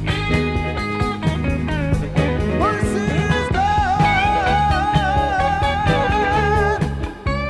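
Late-1970s-style rock band instrumental: an electric guitar lead slides up into a long, held note with vibrato over bass and a steady drum beat.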